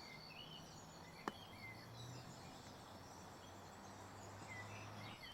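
Faint outdoor ambience: scattered bird chirps over a low steady hum, with one sharp click a little over a second in.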